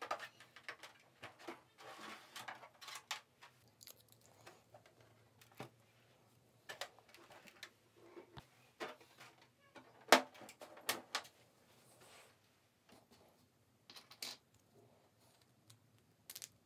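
Scattered light clicks and knocks of hard 3D-printed plastic model-airplane parts being handled on a workbench, with one sharper click about ten seconds in.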